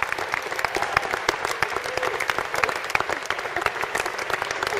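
Audience applauding, many hands clapping in a dense, steady patter, with a few faint voices in the crowd.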